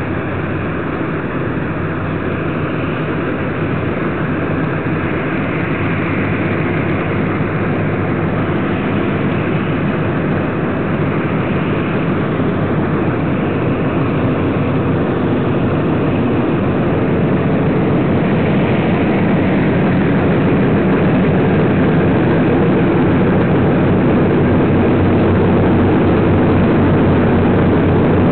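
A B-24 Liberator's four Pratt & Whitney R-1830 Twin Wasp radial engines running at taxi power. The sound is a steady, low, even engine note that grows gradually louder as the bomber draws near.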